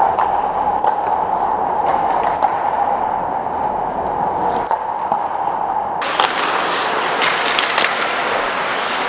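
Ice hockey play: skate blades scraping and carving the ice, with sharp stick and puck clacks, over a steady hum. About six seconds in the sound turns closer and brighter, with quick skate cuts and several sharp clacks.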